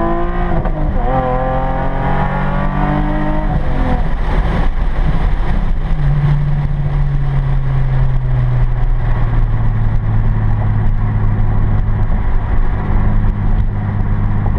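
Nissan 370Z's 3.7-litre V6 with a modified exhaust (resonated test pipes, 3-inch Y-pipe, rear resonator deleted), heard from inside the cabin while driving. The engine pulls through a gear with a shift about a second in, eases off around four seconds, then settles into a steady low note that sinks slightly and holds at cruise.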